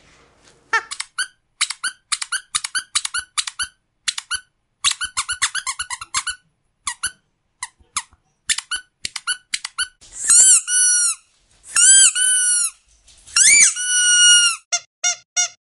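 Squeaky dog toy squeezed in quick runs of short, high squeaks, then, from about ten seconds in, several longer squeaks that rise and fall in pitch, ending with a few lower short squeaks.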